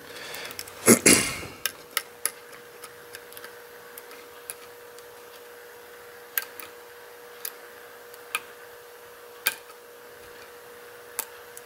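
Lock pick working the pins of a six-pin pin-tumbler lock under tension during single-pin picking: a short scrape about a second in, then sharp separate clicks every second or so as pins are lifted and set.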